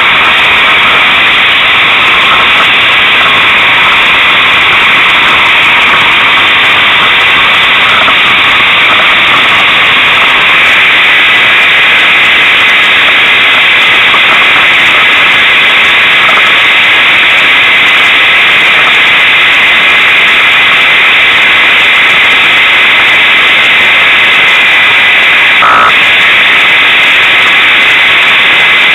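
Unimog 404 S trial truck heard from inside the cab as it crawls through the course: a loud, steady mechanical noise from the engine and drivetrain, with no distinct engine note and a short knock near the end.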